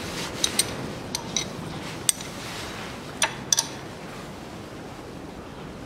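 A few light metallic clinks and taps from hand and tool work on the timing-belt end of the engine, short and irregular, several in quick pairs in the first few seconds.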